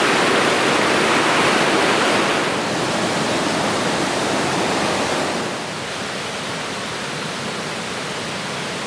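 Shallow mountain river rushing over rocks: a steady, even rush of water that drops a little in loudness about two and a half seconds in and again just past halfway.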